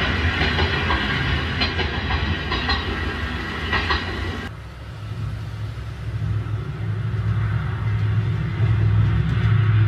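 N gauge model KiHa 30 series railcar running on model track: the small motor hums and the wheels click over rail joints now and then. About halfway through, the higher running sound cuts off suddenly, leaving a low hum that grows louder toward the end.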